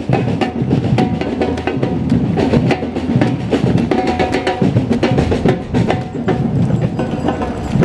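Drums and percussion playing, with dense, steady strikes throughout.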